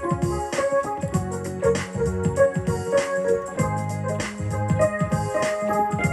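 Instrumental break in a gospel song: held keyboard chords over a bass line, with a steady percussive beat.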